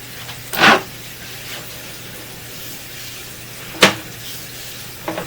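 Bathroom sink faucet left running, a steady rush of water, with two sharp knocks about half a second and nearly four seconds in.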